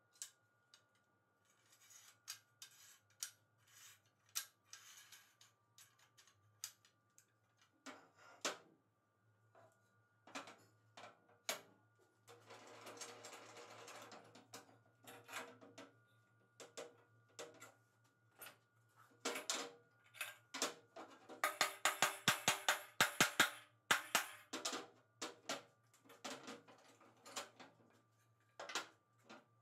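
Metal clicks, knocks and scrapes of a homemade steel bar clamp being worked: its jaw sliding and catching on the square-tube bar and its threaded screw clamping a wooden block. A quick run of rattling clicks a little after the middle is the loudest part.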